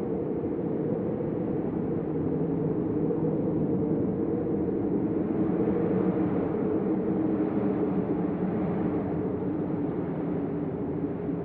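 Deep hurricane storm wind blowing steadily, a low, dense noise that swells a little about halfway through.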